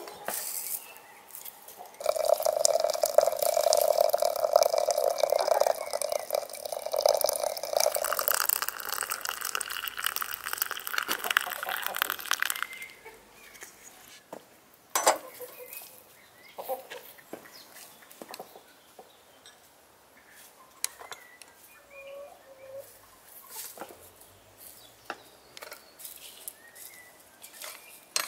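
Water pouring steadily for about ten seconds and then stopping, followed by scattered light clicks and knocks.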